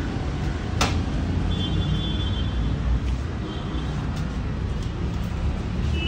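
Steady low background rumble, with one sharp click about a second in and faint high tones now and then.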